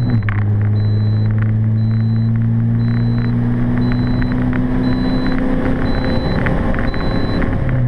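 Volkswagen Golf Mk4 1.9 TDI four-cylinder turbodiesel engine pulling hard, heard from inside the cabin. The engine note drops at once as a gear is changed, then holds steady and climbs slowly, and jumps back up near the end.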